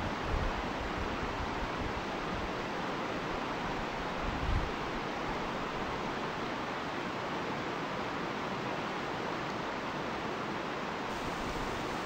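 River rapids rushing over rocks: a steady, even hiss of white water. About four seconds in, a short gust of wind buffets the microphone.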